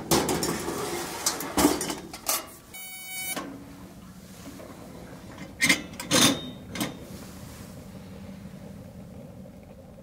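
Knocks and clatters of things being handled, with a short buzz about three seconds in and three more sharp knocks a few seconds later, then a steady low hum.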